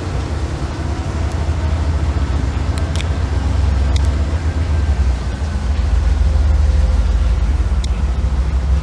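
Steady low rumble of passing heavy vehicles, swelling a little in the second half, with faint steady tones above it and a few light clicks.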